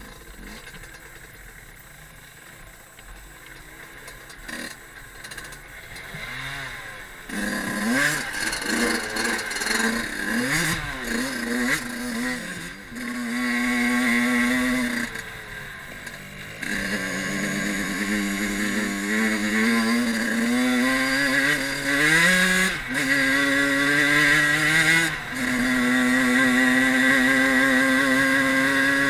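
Fantic 50 Caballero Regolarità's small two-stroke engine under way on a dirt trail. It is low and quiet for about the first seven seconds, then revs up and runs at high revs, rising and falling. The revs drop briefly when the throttle is closed, once in the middle and a few times near the end.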